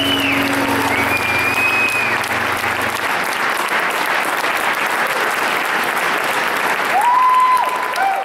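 Concert audience applauding, with a few whistles. The band's last held chord rings under it and stops about three seconds in. The applause fades out right at the end.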